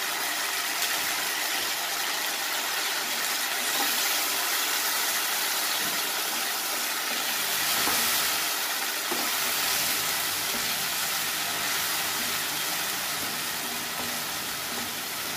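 Stock and sauce sizzling and bubbling in a hot pan of stir-fried vegetables, a steady hiss that is waiting to come up to a bubble before the mutton trotters go in.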